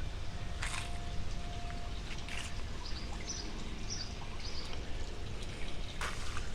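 Water trickling and pouring steadily, with a few short high chirps over it.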